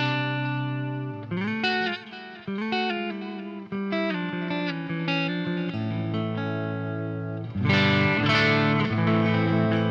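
Les Paul electric guitar with 1958/59 PAF humbuckers played through a 1966 Marshall JTM45 tube amp: single-note lines with string bends, then a held chord, then louder strummed chords near the end.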